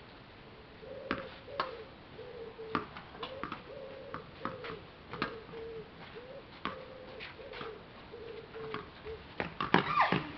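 Sharp clicks of a ball being struck by rackets and bouncing, coming irregularly about every half second to second, and crowding together near the end. A short low tone repeats underneath for most of the time.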